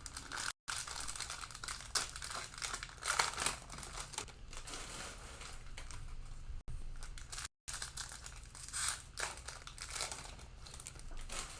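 Cellophane wrapper of a Mosaic cello pack of football cards crinkling and tearing as the pack is opened by hand. The sound cuts out completely twice for a moment, once under a second in and once past the middle.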